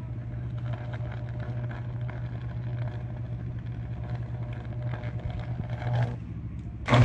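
Power line arcing at the top of a leaning, knocked-down utility pole: a steady electrical buzz with crackle, swelling briefly near the end.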